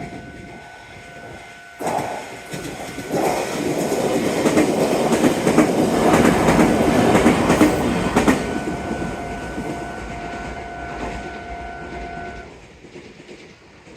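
A Meitetsu Bisai Line electric train passing over a level crossing, its wheels clattering over the rails, starting suddenly about two seconds in and loudest in the middle. The crossing's steady electronic warning tone sounds alongside and stops near the end as the barrier signal ends.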